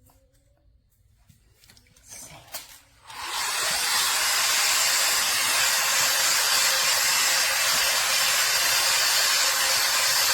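Hair Trends Nano Titanium travel hot air brush switching on about three seconds in, then running with a loud, steady rush of air and a faint steady tone; a few small handling clicks come before it starts.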